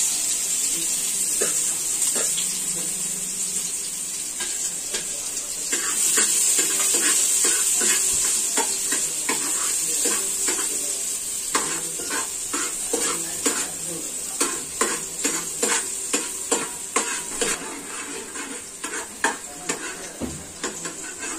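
Chopped onion sizzling in hot oil in a metal pot, with a steel spoon stirring it and tapping and scraping against the pot, the taps coming thick and fast from about six seconds in.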